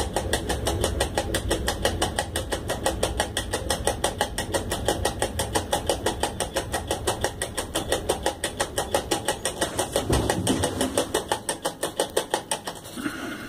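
Cab noise of an ET22 electric freight locomotive under way: a low running rumble with a rapid, even clicking, about eight clicks a second, that stops just before the end, and a single low thump about ten seconds in.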